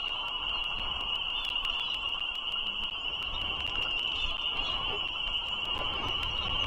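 A dense chorus of frogs calling, a steady high-pitched ringing that runs on without a break, over a low background rumble.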